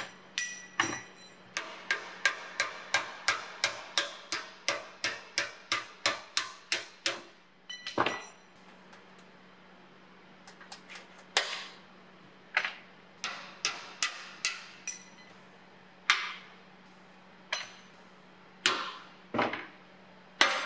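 Hammer striking a screwdriver set against the hinge rivets of a rusty steel toolbox tray, to knock the hinge arms off. Sharp metallic blows ring from the steel box, first in a quick even run of about three a second, then as slower single blows.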